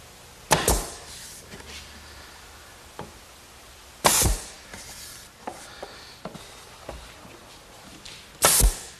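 Pneumatic nail gun firing three times, about four seconds apart, each shot a sharp bang with a brief tail, driving nails through the sides of a wooden case into its back panel. Faint clicks of the tool being set against the wood come between the shots.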